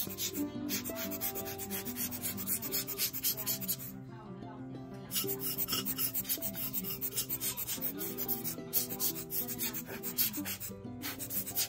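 A hand tool rubbing rapidly back and forth over the carved surface of an unfired clay pot, in quick scratchy strokes. The strokes come in runs, pausing briefly about four seconds in and again near eight seconds.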